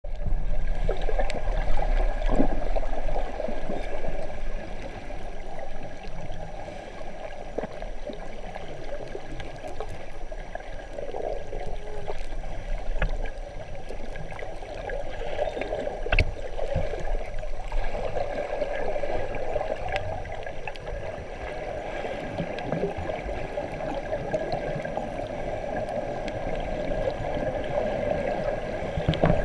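Muffled underwater water noise picked up by a submerged camera: a steady gurgling rush, with a faint steady whine and a few short clicks.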